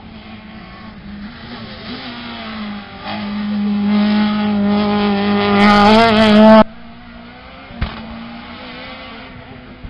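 Citroën C2 rally car's engine running hard at high revs, growing louder as the car comes close, its pitch wavering at the loudest point. It cuts off suddenly about two-thirds through, leaving a fainter, more distant car engine and a single sharp knock.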